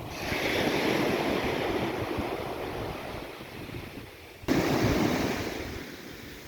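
Sea waves washing onto the shore, with wind buffeting the microphone. The wash swells up twice, about four and a half seconds apart, and fades away after each.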